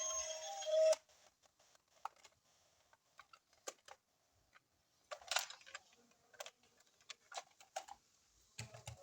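Intro music cuts off about a second in, then scattered light clicks and taps of toys and their plastic packaging being handled during an unboxing, with a louder cluster near the middle.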